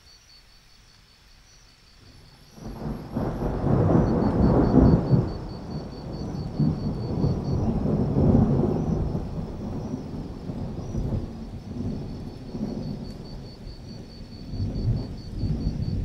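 A thunderclap breaks in about two and a half seconds in and rolls on as a long, deep rumble, swelling again twice before it dies away. Underneath, crickets keep up a steady, rapid high chirping.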